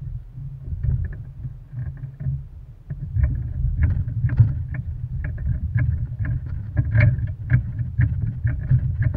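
Wind buffeting an action camera's microphone in an uneven low rumble, with a run of light clicks about two to three a second starting a little after three seconds in.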